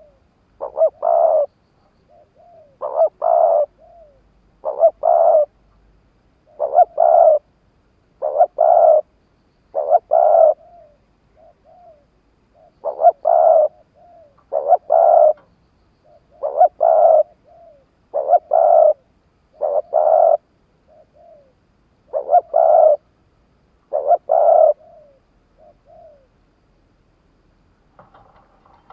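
Spotted dove cooing over and over, a loud phrase of closely spaced notes about every two seconds with softer short notes in between: a decoy bird's call used to lure wild doves.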